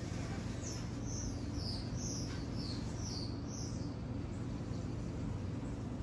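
A songbird in the trees twittering: a quick series of about eight short, high chirps, each sliding down in pitch, over about three seconds, then it stops. A steady low rumble runs underneath.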